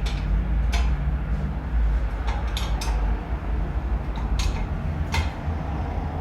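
Metal tools and parts clinking and knocking, several separate sharp clinks, over a steady low rumble.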